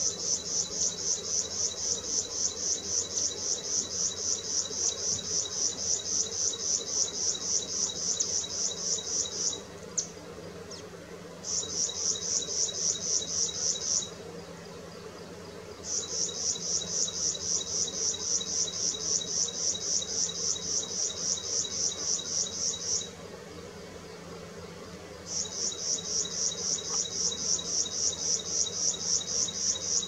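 An insect calling: a high, rhythmic chirring at about four pulses a second, in long trains that break off three times for a second or two. A faint steady low hum runs beneath it.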